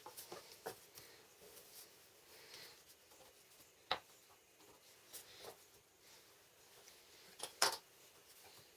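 Scattered light clicks and taps in a quiet room, with a sharp click about four seconds in and two louder knocks near the end.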